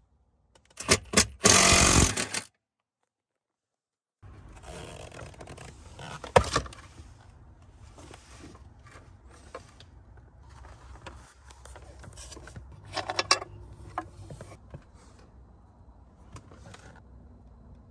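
Cordless power tool briefly running a socket on a long extension to back out a steering-column mounting bolt, then metal clunks, knocks and scraping as the steering column is worked loose and lifted out of the dash.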